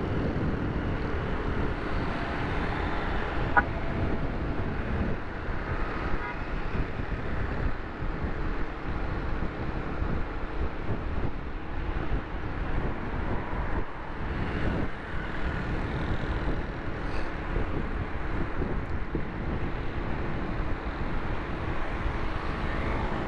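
Wind and road noise rushing steadily over the microphone of a moving motorbike, with traffic around it. A short sharp blip sounds once, about three and a half seconds in.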